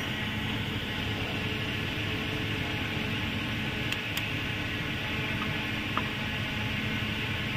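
Steady mechanical hum with an even hiss, with a couple of faint light clicks about halfway through.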